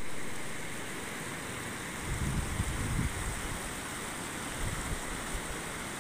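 Floodwater rushing across a submerged road, a steady wash of noise, with low gusts of wind buffeting the microphone about two seconds in.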